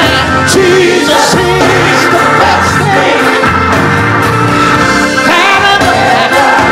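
Live gospel music in a church: voices singing together over a band with steady bass notes, loud and continuous.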